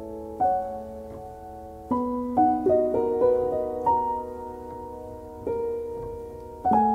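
Background solo piano music, slow sustained notes and chords.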